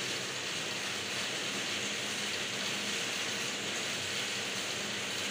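Large-format outdoor printer with KM512i printheads running mid-print: a steady hiss of its fans and moving print carriage over a faint low hum.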